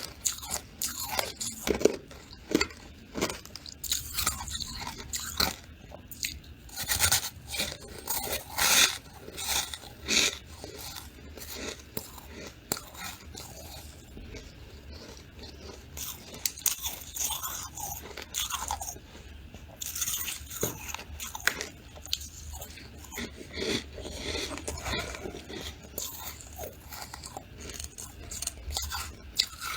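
A person biting and chewing squeaky freezer frost close to the microphone: irregular crunching bites and chews, several a second in bursts with short pauses between.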